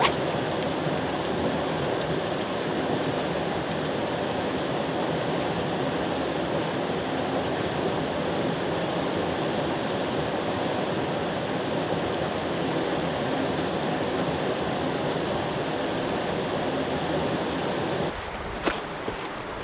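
Steady rushing of white water from a river rapid, an even roar without a beat. A few light ticks in the first couple of seconds, and the roar drops a little near the end.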